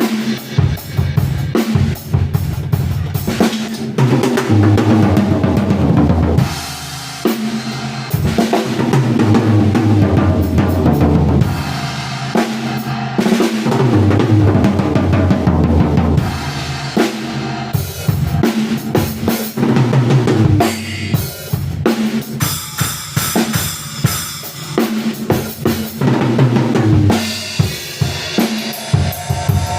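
A band playing loud music driven by a full drum kit: kick drum, snare and rimshots over pitched low bass lines.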